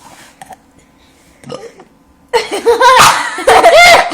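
A loud, long burp with a wavering pitch, beginning a little over two seconds in and lasting nearly two seconds.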